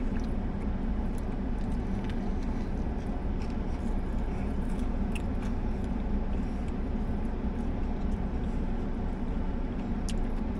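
Steady low hum inside a car's cabin, with faint chewing sounds of a man eating a fried chicken sandwich.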